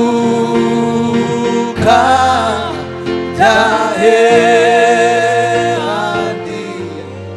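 Gospel worship music: a singing voice with vibrato in two long phrases over steady held instrumental chords.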